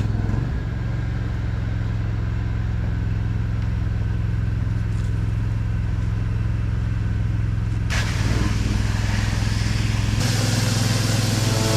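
An engine running steadily at a constant speed, with a hissing noise joining it about eight seconds in.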